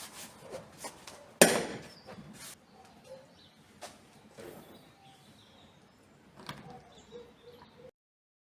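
Clicks and knocks of hands and tools working on a car's boot lid latch, with one sharp knock about a second and a half in and lighter taps after it; the sound cuts off suddenly near the end.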